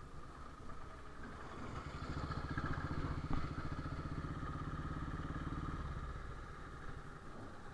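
Royal Enfield Bullet's single-cylinder engine running while riding, a low rapid even thump that grows louder about two seconds in and eases off near the end.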